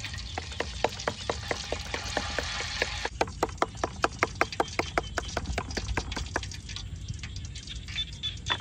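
A kitchen tool striking pork in quick, even strokes, about five a second, stopping about six seconds in.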